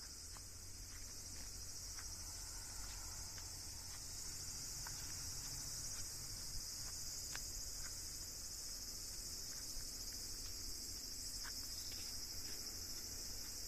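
Steady, high-pitched chorus of insects, with a few faint clicks and a low rumble underneath.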